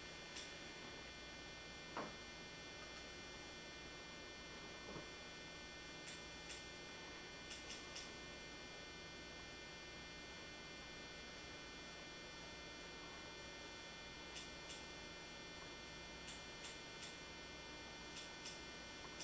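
Faint steady electrical mains hum with a high whine, and a dozen or so soft ticks scattered through, the loudest about two seconds in.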